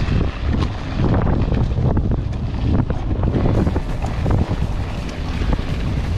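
Wind buffeting an action camera's microphone during a mountain bike ride, a heavy low rumble, with the bike rattling and knocking over rough ground in frequent short clicks.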